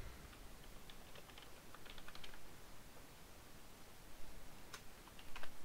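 Faint typing on a computer keyboard: soft keystrokes in short runs, then a few more separate clicks in the second half.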